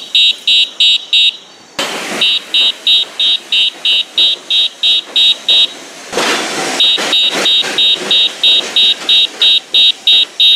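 Five-sound electronic bicycle horn sounding a rapid high-pitched beeping, about four beeps a second. The beeping breaks off twice for about a second, during bursts of noise.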